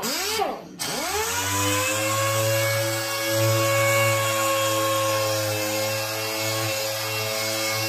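Air-powered jitterbug palm sander (a cheap Harbor Freight unit) running with a steady high whine while wet sanding clear coat with 2000-grit film. Just after the start it slows almost to a stop, then spins back up to speed within about a second and holds steady.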